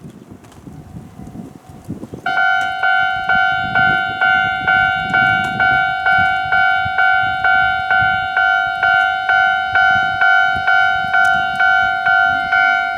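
Japanese railway level-crossing warning bell starting suddenly about two seconds in and ringing its electronic 'kan-kan' about twice a second, over a low rumble of wind.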